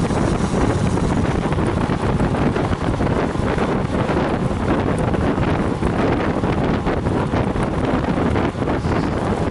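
Steady wind noise buffeting the microphone of a bike-mounted camera riding at race speed in a road cycling pack.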